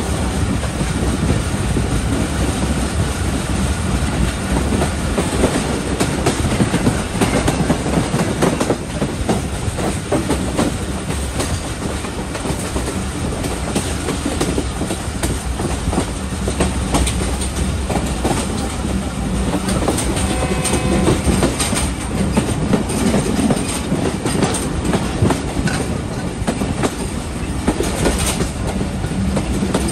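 Passenger train running on the rails, its wheels clattering steadily over rail joints, heard from aboard the moving train.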